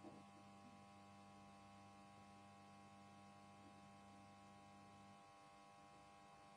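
Near silence with a faint, steady electrical hum; its lowest tones stop about five seconds in.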